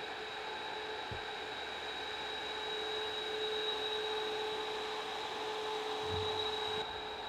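Steady electric whirring of a Ghost Robotics Vision 60 quadruped robot standing idle, a hum with a held high whine over a hiss. The lower part of the hum cuts out near the end.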